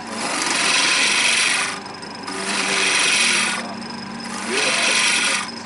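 A turning tool cutting a wooden handle spinning on a lathe: three passes of about a second and a half each, with short gaps between where only the lathe's hum is left.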